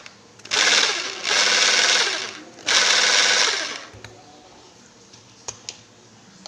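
Maktec MT 870 concrete rotary hammer drill run in three short bursts of about a second each, with a rough snoring noise; the drill lacks power, a fault the owner is showing.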